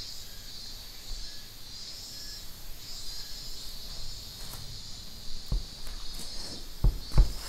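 Insects chirping in a steady, high, gently pulsing chorus. A few soft knocks come near the end, the loudest two close together.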